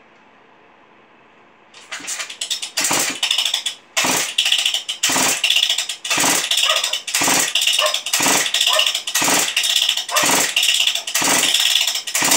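Husqvarna 394 XP 94 cc two-stroke chainsaw being pull-started on its first start attempt after a piston rebuild. Starting about two seconds in, it gets some ten rapid pulls of the recoil starter, about one a second, each with a loud rasp as the engine turns over, and it does not catch and run.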